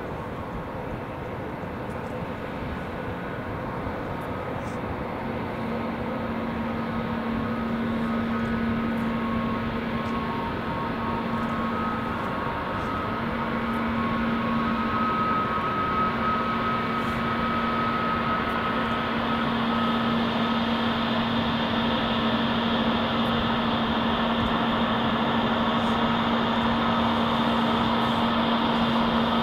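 Airbus A321neo twin turbofan engines at taxi power: a steady jet whine and rush, growing louder as the airliner turns and heads toward the listener.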